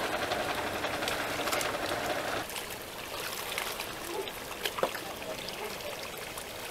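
Muddy pond water splashing and trickling as people wade and grope for fish. There is a heavier, pouring rush for the first two and a half seconds or so, then scattered small splashes.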